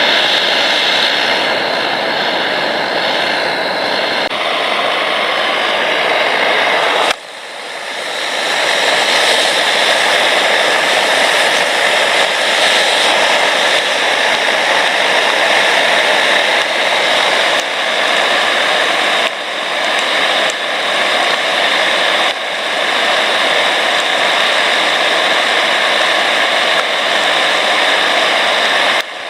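MSR DragonFly liquid-fuel camp stove burning with a loud, steady roar. About seven seconds in, the sound drops briefly and then swells back up.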